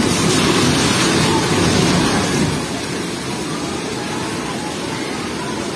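Roar of fast-flowing floodwater, heavier for the first couple of seconds as a house collapses into the swollen river, then a steady rushing.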